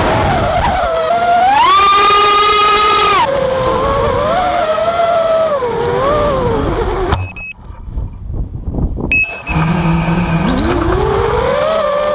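Racing quadcopter's brushless motors (AOKFly 2300kv) and three-blade props whining, the pitch rising and falling with throttle through fast passes. The sound drops out for about two seconds around seven seconds in, then returns with a low steady hum and a rising whine as the motors spool up near the end.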